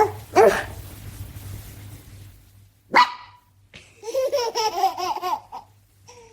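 Dachshund barking: two short yelps at the start and a sharp bark about three seconds in, then about a second and a half of wavering, pitched vocal sounds.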